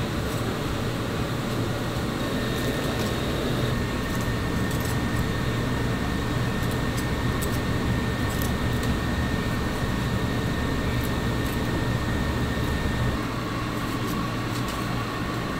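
Steady mechanical drone with a low hum, over which a large knife scrapes and trims raw pig's trotters in short, scattered strokes.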